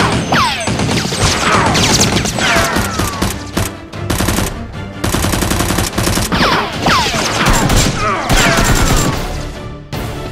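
Rapid automatic gunfire sound effects, with several falling whistles, over background music.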